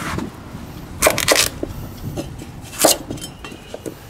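Chinese cleaver chopping through raw pumpkin onto a wooden chopping board: two loud chops, about a second in and near three seconds, with lighter knocks of the blade on the board between.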